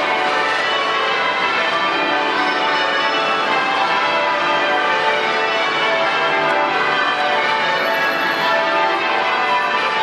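Westminster Abbey's ring of ten church bells pealing, many bells struck in quick succession so their tones overlap in a continuous, steady wash of ringing.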